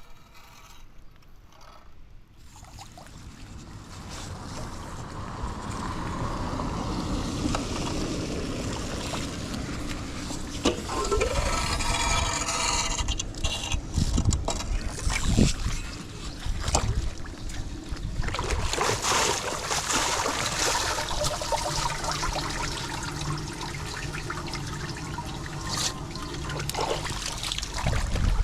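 Water rushing into a storm drain cleared of leaves and debris: a steady rush that builds up a few seconds in, with scattered knocks.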